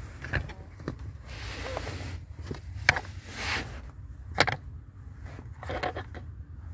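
Handling noise: a few sharp clicks and knocks with short bursts of rustling and scraping as a multimeter, a fuse-socket ammeter tester and their test leads are moved about on a rubber car floor mat.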